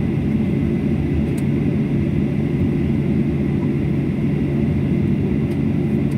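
Cabin noise inside an airliner taxiing toward take-off: a steady low rumble from the idling engines and rolling wheels, with a thin steady high whine over it.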